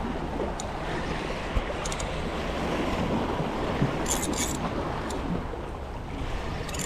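Waves washing against jetty rocks, with wind buffeting the microphone. A few short, high clicks sound about four seconds in and again near the end.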